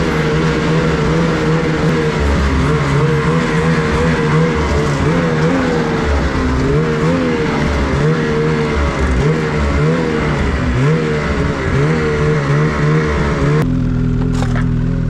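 Turbocharged two-stroke 850 engine of a 2024 Ski-Doo Summit X Expert Turbo snowmobile, still warming up, its pitch rising and falling with light throttle as the sled moves slowly over bare pavement. It settles to a steady idle about a second and a half before the end.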